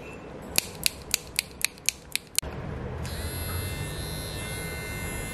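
A nail clipper snips eight times in quick, even succession, about four a second. Then an electric nail grinder starts and runs steadily with a high whine.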